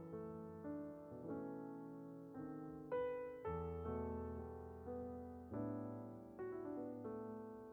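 Soft background piano music, slow single notes and chords struck about once or twice a second, each left to fade.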